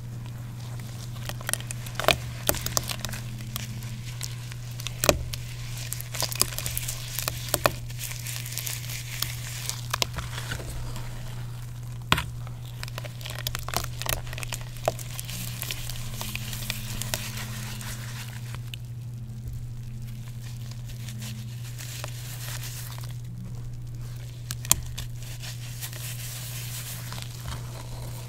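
Water-soaked gym chalk being crumbled and crushed by hand: irregular gritty crackles and sharp snaps, thinning out for a few seconds past the middle. A steady low hum runs underneath.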